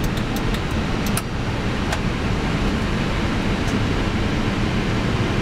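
Steady rushing noise in an Airbus A319 cockpit as engine 1 is being started, with a few sharp switch clicks in about the first second.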